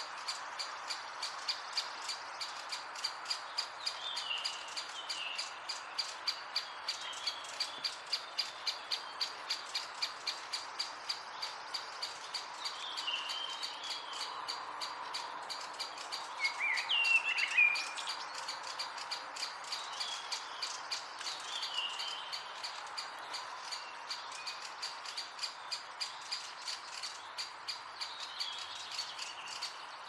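Great spotted woodpecker giving a steady series of sharp ticking calls, about two a second, while other songbirds add short chirping phrases, the loudest a little past halfway.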